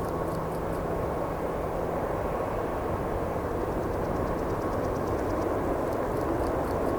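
Freight cars of a mixed manifest train rolling past, a steady rumble of wheels on rail with faint rhythmic high ticking; a low hum fades out a couple of seconds in.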